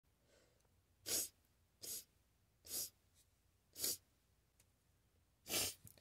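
A woman's quick, sharp breaths of air, five in all about a second apart, each short and unpitched: the tickling build-up before a sneeze.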